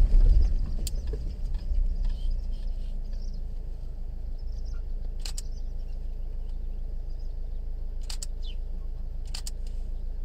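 Car engine heard from inside the cabin as the car slows and rolls to a stop over the first few seconds, then idles with a steady low hum. A few short, sharp ticks come through about halfway in and near the end.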